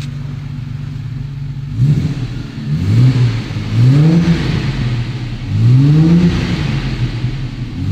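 Jaguar Mk2's straight-six engine, heard from inside the cabin, idling for a moment and then blipped several times, each rev rising and falling back to idle. It sounds nice and strong.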